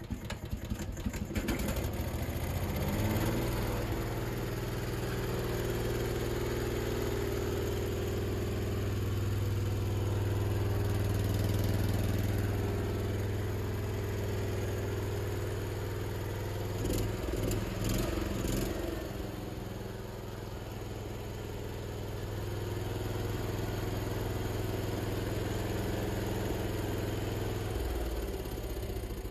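Honda 3.5 kVA generator's single-cylinder engine starts within the first few seconds and then runs at a steady speed with its governor freshly reset. The sound is "very cool" now, no longer overspeeding. A few knocks come about two-thirds of the way through.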